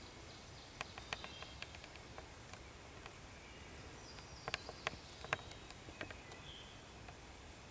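Dry leaf litter crackling in scattered sharp ticks under wild turkeys walking and foraging, with a busier cluster of crackles about halfway through.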